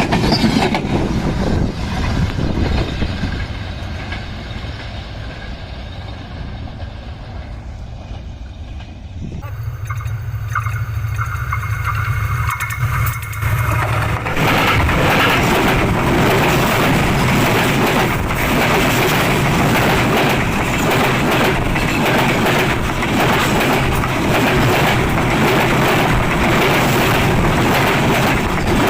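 Panchagarh Express passenger train running directly over a phone lying on the track: a loud, continuous rumble and rattle of the carriages. The tone changes abruptly about nine and again about fourteen seconds in, then stays loud and steady.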